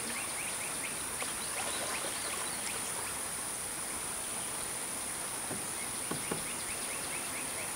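Insects droning steadily in a high, thin, unbroken buzz over the river ambience, with faint runs of quick chirps and a few light knocks.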